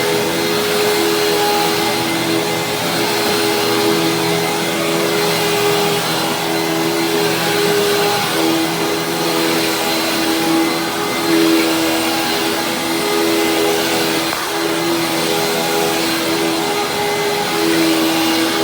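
Hoover WindTunnel Supreme upright vacuum running continuously, a steady motor hum whose tone wavers slightly from time to time. It has a freshly cleaned filter and a new brushroll.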